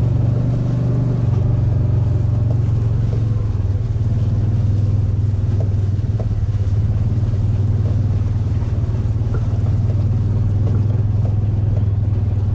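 Kawasaki Mule utility vehicle's engine running steadily while driving, a continuous low hum with no change in pace.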